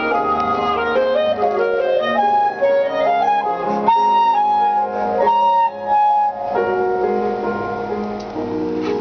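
Clarinet playing a melody note by note, with a run of rising notes in the first few seconds and a couple of held high notes around the middle.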